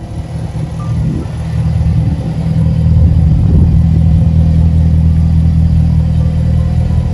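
Jaguar F-Type SVR's supercharged 5.0-litre V8 running at a standstill through its quad exhaust: a deep, steady rumble that grows louder over the first few seconds and then holds.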